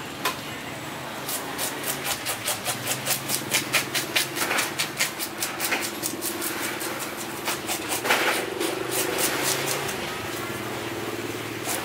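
Metal fish scaler raking the scales off a snakehead fish on a wooden chopping block: a long run of quick scraping strokes, about five a second, over a steady low hum.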